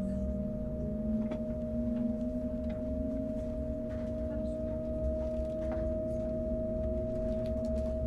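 Interior of an ICE high-speed train running at slow speed: a steady low rumble with a constant high tone and a lower whine that slowly rises in pitch, with a few faint clicks.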